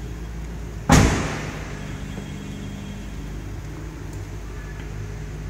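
Suzuki Swift hatchback's tailgate slammed shut once, about a second in, a single loud thud with a short ring, over a steady low hum.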